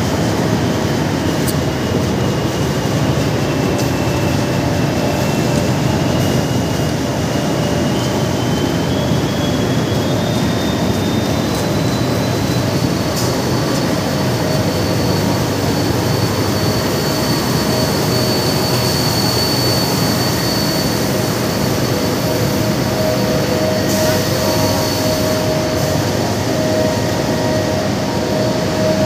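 Steady loud din of heavy industrial machinery running in a large factory hall. A faint high whine climbs in small steps through the first half, over a lower steady hum.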